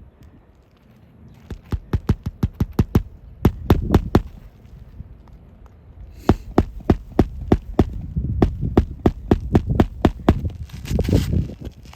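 Quick, evenly spaced hammer strikes on an asphalt shingle roof, in two runs: the first starting about a second in, the second from about six seconds in.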